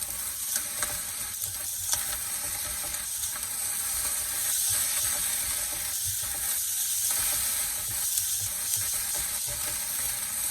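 Fried rice sizzling in a lightly oiled pan while being stirred, with a steady high hiss and scattered short clicks and scrapes of the stirring utensil against the pan.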